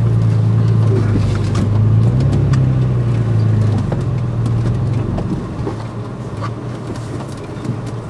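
Toyota FJ Cruiser's 4.0-litre V6 pulling steadily under load up a steep dirt climb, heard from inside the cab, with scattered knocks and clicks over the rough ground. The engine eases off about four seconds in.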